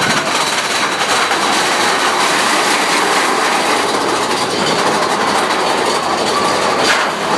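Big Thunder Mountain Railroad mine-train roller coaster running on its track, heard from a rider's seat: a loud, steady rattle and rumble of the cars and wheels, with one sharp clank near the end.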